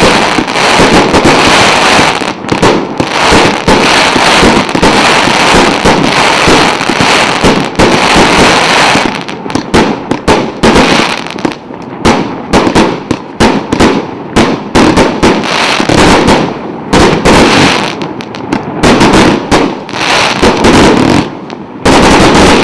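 A 100-shot 1.2-inch firework cake firing salvo after salvo of shells, with launch thumps and aerial bursts. For the first several seconds the shots run together into one continuous barrage. After that they come as separate sharp bangs with short gaps, and a loud dense volley comes near the end.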